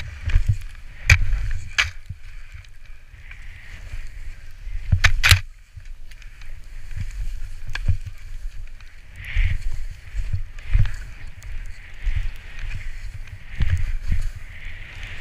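Skis sliding through deep powder snow: a continuous swishing hiss, with wind rumbling on the microphone. A few sharp knocks stand out, about one, two and five seconds in.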